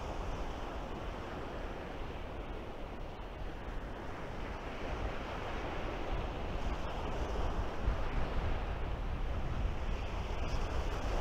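Sea waves breaking and washing up onto a pebble beach, with a steady wind.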